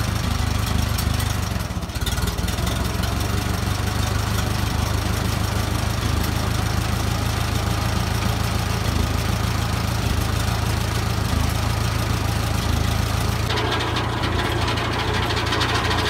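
Case 530 tractor engine running steadily at low speed while it drives the sawmill. Near the end the sound changes abruptly and picks up more rattle.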